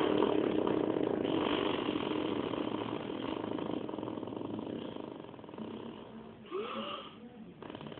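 A long, buzzing fake fart noise made by a child, slowly fading over several seconds, with a short rising squeak about six and a half seconds in.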